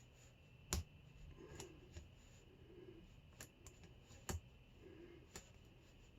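Small metallic clicks of a lock pick and tension wrench working the pins of a Hurd padlock: two sharper clicks, about a second in and past four seconds, among a few fainter ticks.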